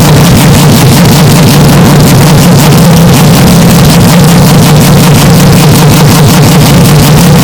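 Historic Group C race car engine running at a steady pitch, with no rise or fall, recorded so loud that it is clipped and heavily distorted.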